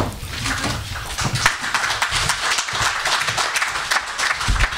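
Audience applauding: dense, steady clapping with a low thump near the end.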